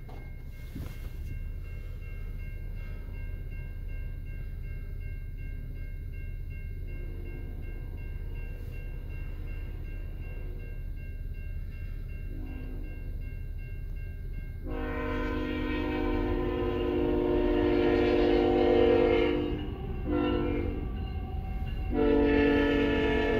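Diesel locomotive horn on an approaching Canadian National freight train, heard from inside a car at a grade crossing. It is faint at first, then sounds a long loud blast, a short one and another long one, over a steady low rumble.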